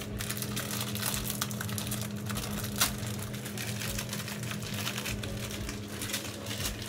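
Plastic instant-ramen packet crinkling and rustling as it is handled and torn open, with a sharp crack about three seconds in.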